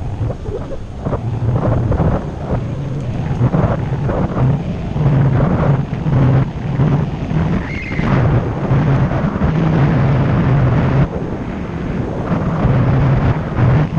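Wind buffeting the microphone of a bike-mounted camera, over the steady rumble of bicycle tyres on asphalt, with frequent small knocks from bumps in the road.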